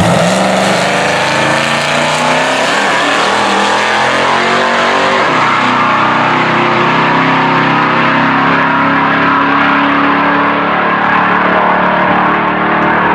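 Loud drag-race car engine running at steady high revs, its pitch shifting slightly now and then.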